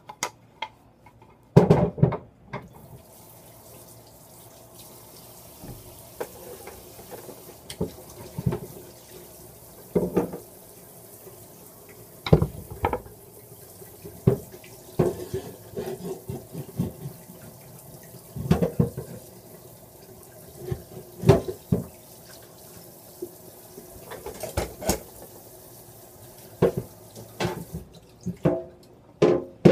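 Kitchen tap running into a sink while a wooden cutting board is washed, with repeated knocks and clunks of the board and hands against the sink. The water comes on about three seconds in and shuts off near the end.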